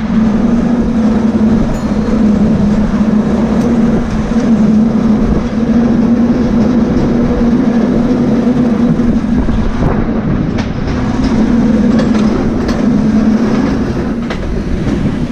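San Francisco California Street cable car running along its line: a steady hum with the rattle of the moving car, and a few sharp clicks in the second half.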